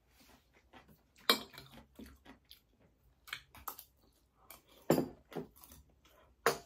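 Close-miked eating: chewing and mouth sounds, with short sharp clicks of a metal spoon against dishes, three of them louder than the rest.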